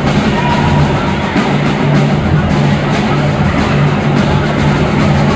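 Marching drumline playing a dense, loud cadence: snare drums, tenor drums and pitched bass drums struck together with crash cymbals.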